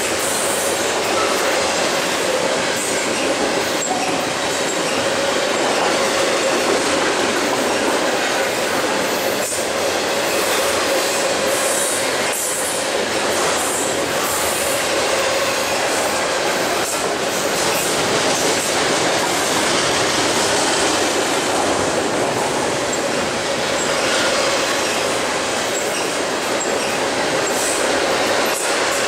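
Double-stack intermodal freight train's container well cars rolling steadily past close by: a continuous rumble and rattle of steel wheels on rail, with a steady whining tone and scattered clicks of wheels over the rail.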